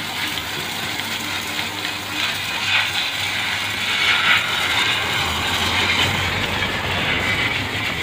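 High-pressure water jet from a washer lance spraying a pickup's tyre and wheel arch: a steady hiss and spatter of water, over a low steady hum, swelling louder a few seconds in.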